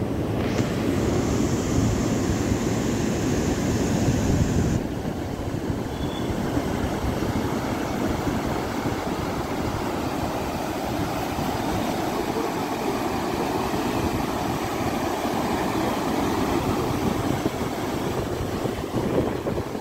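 Flowing water rushing steadily, with an abrupt shift about five seconds in to a slightly softer rush without the earlier high hiss.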